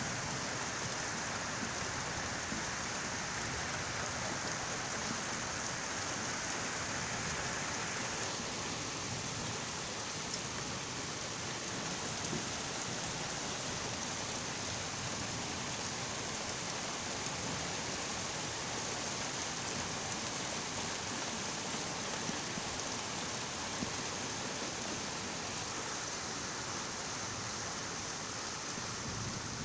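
Rain falling steadily: an even, continuous hiss.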